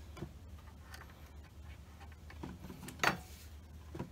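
Quiet handling of a glue-dipped screw being set into a wooden hive box: a few small clicks and taps, with one louder click about three seconds in, over a steady low hum.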